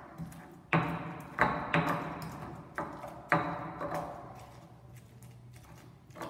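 Stone pestle pounding and grinding chiles in a volcanic-stone molcajete: about five sharp, stony knocks with a short ring in the first half, then softer crushing and scraping as the pounding eases.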